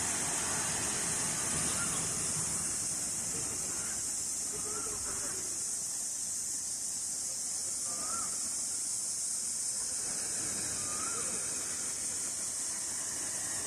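Outdoor nature ambience: a steady high-pitched hiss, with a short rising-and-falling chirp every three or four seconds.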